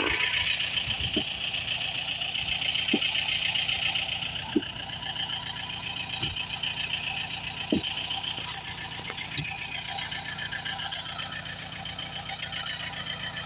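Tractor engine running steadily, with a few sharp knocks over it.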